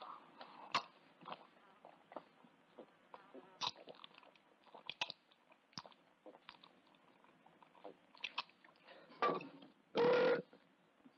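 A man eating and drinking: scattered light clicks of utensils and a tin mug, chewing and gulping as he drinks from the mug, then a loud, short vocal sound from his throat about ten seconds in.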